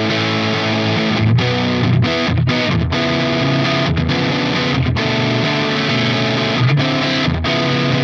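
Soloking MT-1 Classic electric guitar played with an overdriven, distorted tone: a continuous run of notes and chords broken by several brief stops.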